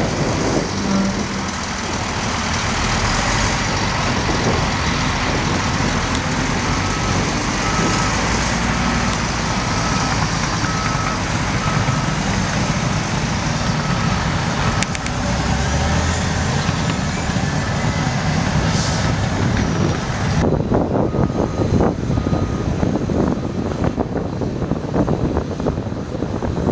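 Liebherr TA 230 articulated dump truck's diesel engine running, with a reversing alarm giving steady, evenly spaced beeps through the middle. About two-thirds of the way in the sound turns duller, with the beeps fainter.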